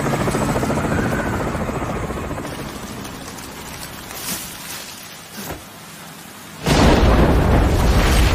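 Helicopter rotor chop in heavy rain, fading over the first few seconds. A quieter stretch follows with a couple of brief knocks, then about two-thirds of the way in a sudden loud rush of churning water.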